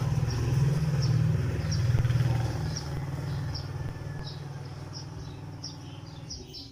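Small birds chirping over and over, high and short, over a low rumble that is loudest in the first couple of seconds and fades toward the end.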